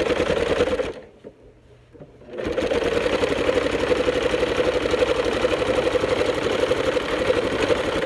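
Electric sewing machine stitching a seam through layers of fabric at a steady, fast stitch rate. It stops about a second in, stays quiet for about a second and a half, then starts stitching again.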